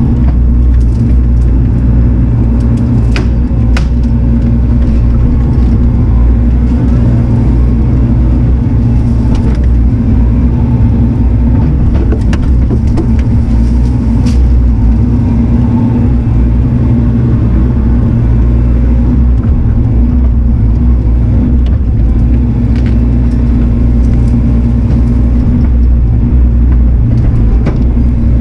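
Diesel engine of an earthmoving machine running steadily under work, a loud constant low drone with a few sharp knocks.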